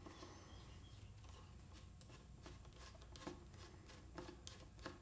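Near silence with a few faint, scattered metallic clicks: a screwdriver turning out the hammer screw in the side of a Marlin 1894 lever-action receiver.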